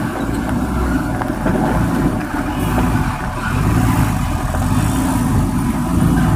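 Diesel engine of a heavily loaded multi-axle Tata truck running as the truck drives slowly past close by, a steady low rumble that grows louder as it nears.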